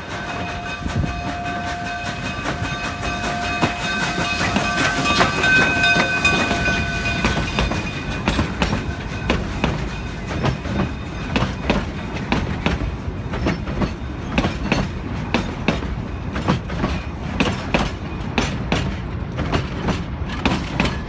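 Cumbres & Toltec narrow-gauge steam train crossing a steel trestle close by. For the first seven seconds several high steady tones ring over the rumble. After that the coaches roll past, their wheels clicking over the rail joints in a steady rhythm.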